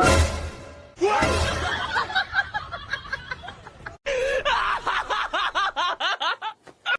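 A sudden thump right at the start, then a person laughing in quick repeated bursts. The laughter breaks off sharply about four seconds in and starts again in a second laughing fit.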